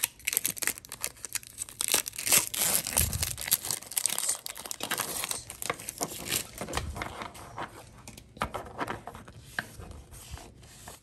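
A foil trading-card booster-pack wrapper crinkling and tearing, busiest in the first few seconds. Then come sparser clicks and slides as the stack of cards is handled and fanned through.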